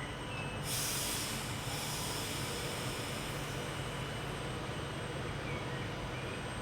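A train running at a station with a steady low hum, and a sudden burst of hiss about a second in.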